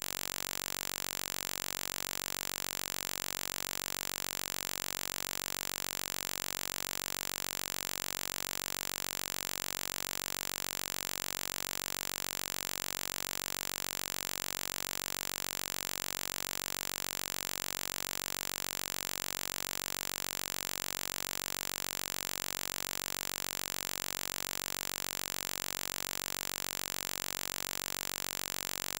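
A steady electronic buzz and hiss that does not change at all, strongest in the treble.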